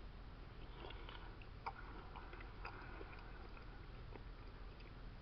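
Faint eating sounds: a few light clicks of a metal fork at a plastic food container, with quiet chewing, over low room noise.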